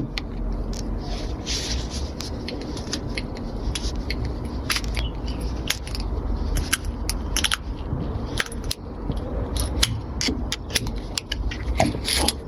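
Irregular sharp clicks and scrapes of small hard objects being handled, over a steady low rumble.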